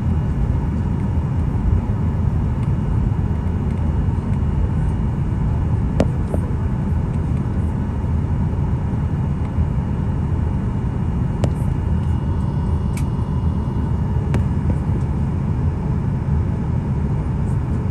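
Cabin noise of a Boeing 737-800 taxiing: a steady low rumble from its CFM56-7B engines and airframe, with a few short clicks, the sharpest about six seconds in.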